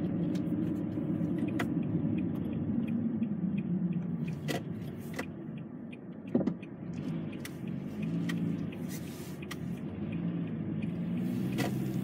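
A car's engine and road noise heard from inside the cabin while driving at low speed, a steady low hum whose pitch drifts with speed. Scattered light clicks and ticks run through it, with one sharper knock a little after halfway.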